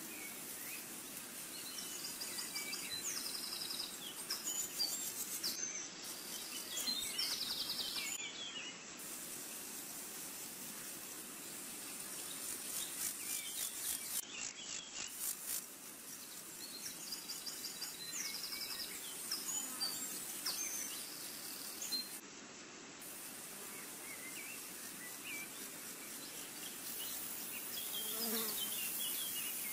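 Outdoor nature ambience: insects buzzing and trilling, with scattered short bird chirps over a steady hiss.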